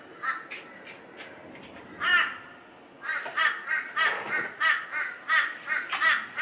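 A bird calling harshly and over and over, with crow-like caws. There are a few scattered calls and one louder call about two seconds in, then a quick run of calls at about three a second through the second half.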